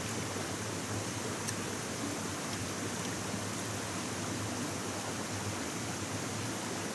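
Steady rushing of flowing water, like a spring-fed stream, with a few faint ticks over it.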